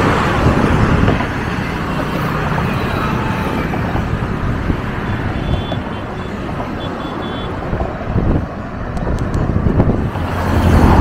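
Steady road traffic noise from vehicles passing on the road alongside.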